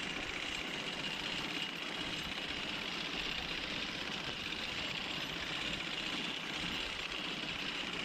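Horse-drawn sickle-bar mower running steadily as the team pulls it through standing hay: the cutter bar's knife makes a steady, even mechanical chatter.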